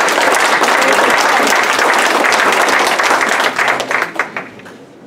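Audience applauding: dense clapping of many hands that thins to a few scattered claps and dies away about four seconds in.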